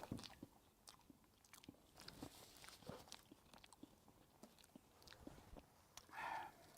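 Faint chewing of soft banana: small wet mouth clicks and smacks, scattered and irregular, with a brief voiced sound near the end.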